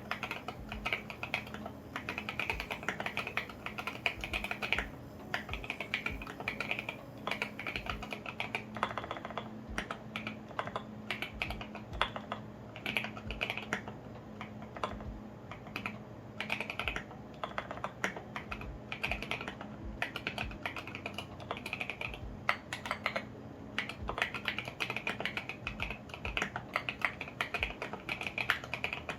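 Steady fast typing on a custom 65% acrylic mechanical keyboard (KBDfans Tofu65) with lubed and filmed Alpaca V2 linear switches and SA-profile ABS keycaps: a dense, continuous stream of key clacks.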